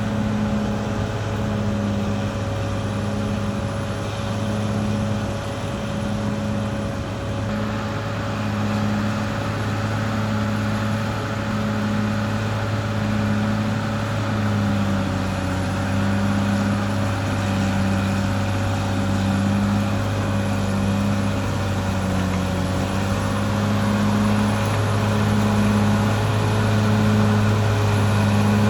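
Caterpillar D6R XL bulldozer's diesel engine running steadily under working load, with a regular throb about once a second. The sound gets fuller about seven seconds in.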